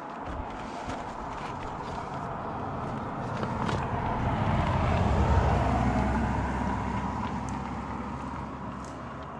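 A road vehicle passing by, its engine rumble and tyre noise swelling to a peak about halfway through and then fading away, with a few faint light taps.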